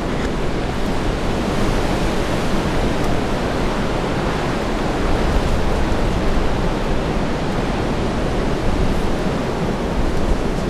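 Strong gusting wind blasting the camera microphone: a loud, steady rushing roar with an uneven low rumble.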